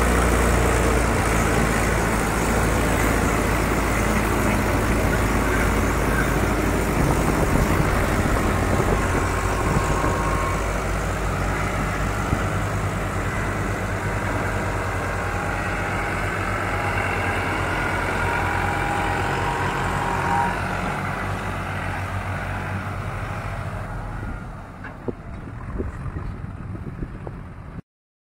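Diesel engine of a New Holland 3630 tractor running steadily as it pulls a loaded soil trolley, fading over the last few seconds and then cutting off abruptly.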